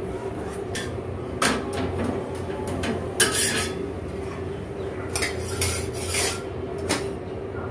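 Metal spatula scraping and clinking on a tawa as a cheela is turned and pressed, then lifted onto a steel plate. Several short scrapes, the longest about three seconds in, over a steady hum.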